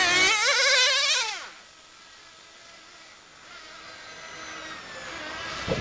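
Brushless electric motor of a 1/10-scale RC racing car whining past at speed, its pitch wavering with the throttle. The whine drops in pitch and fades about a second and a half in, leaving only a faint distant whine from cars further round the track.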